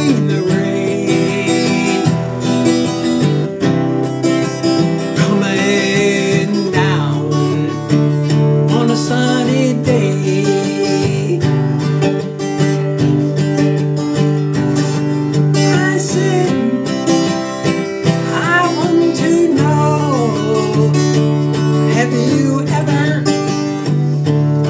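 Acoustic guitar strummed in steady chords, the chords changing every couple of seconds.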